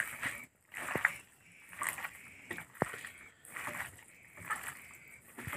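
A hand squishing and squelching oiled, spice-coated raw chicken pieces in a steel bowl, in irregular wet strokes with a few sharp clicks.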